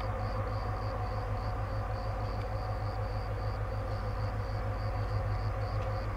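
Steady drone of a standing electric locomotive's cooling fans and auxiliary equipment, a low hum with several steady tones above it. A faint high chirp pulses about three times a second.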